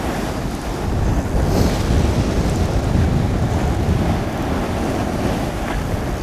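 Sea surf breaking and washing against the rocks, mixed with wind buffeting the microphone; the rush swells about a second in.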